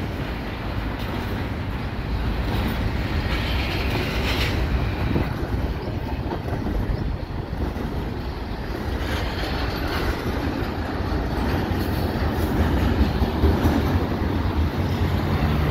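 A freight train of double-stack container well cars rolling past, its steel wheels running on the rails in a steady rolling noise.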